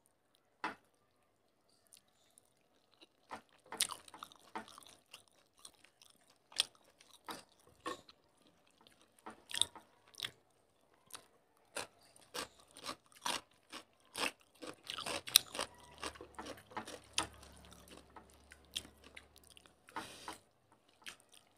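People eating rice and fish curry with their hands: scattered wet chewing and mouth clicks, sparse at first and coming more often in the second half.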